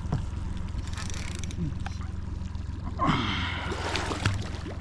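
Hooked paddlefish thrashing and splashing at the water's surface, a burst of splashing about three seconds in, over a steady low hum.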